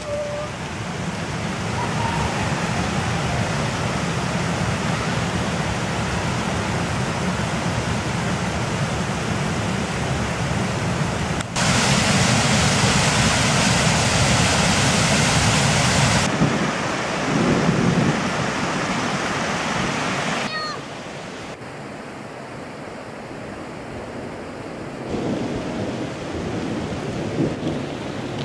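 Steady rushing noise throughout, with a louder, brighter stretch of about four seconds from about twelve seconds in: a small waterfall pouring over a stone weir into a forest stream.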